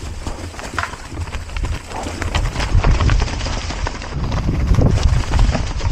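Mountain bike being ridden over rough, rocky trail: tyres and frame clattering over stones in quick irregular knocks, over a heavy low rumble that grows louder from about two seconds in.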